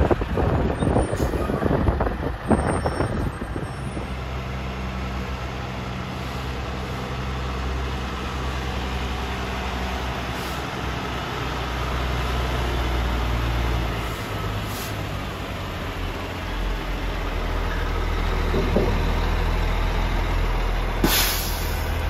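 Loaded log trucks with trailers driving past, their diesel engines giving a steady low drone that swells and fades as each truck goes by. There are a few rough bursts in the first seconds. A short, sharp hiss near the end is typical of an air-brake release.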